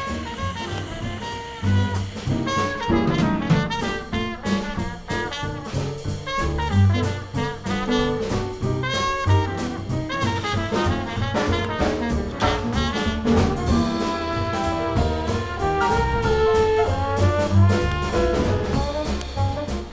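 Background music: an upbeat jazzy track with brass and a steady beat.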